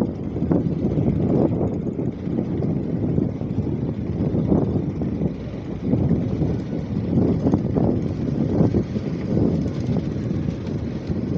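Strong wind buffeting the microphone: a loud, low rumble that surges and falls in gusts.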